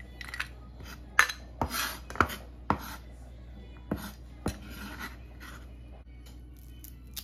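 Cleaver blade scraping minced sand ginger across a wooden cutting board and against a stainless steel bowl: a series of sharp knocks and clinks with short scrapes in between, thinning out after about five seconds.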